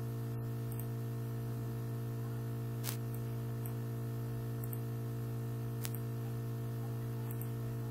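Steady low electrical mains hum with no speech. Two sharp mouse clicks come about three seconds apart, as on-screen slider switches are clicked on.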